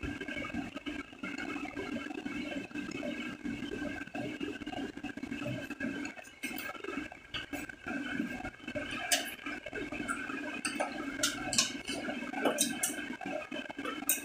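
Steady hum or whoosh of room machinery, with a few scattered light clicks and clinks in the second half as hairdressing tools are handled.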